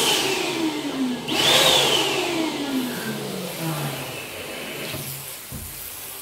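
Electric balloon pump running, inflating a large foil balloon: its whirring whine twice jumps up and then sags slowly lower in pitch, growing gradually quieter.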